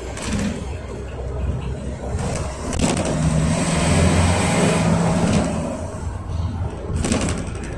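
Cabin sound of a GAZelle Next minibus under way: its Cummins ISBe 2.8 diesel engine pulling with road noise, getting louder to a held engine note in the middle, then easing off. A few short rattles come near the start, at about three seconds and near the end.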